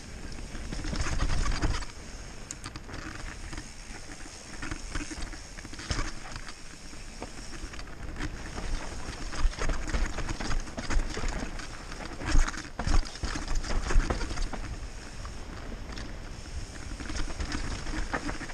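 Mountain bike descending a dry dirt and gravel trail at speed: tyres crunching and rolling over the ground with a steady rumble, and sharp knocks and rattles as the bike hits bumps, rocks and roots, most of them in the second half.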